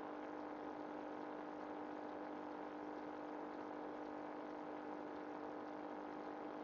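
A steady machine-like hum holding one fixed pitch, over a faint even hiss, unchanging throughout.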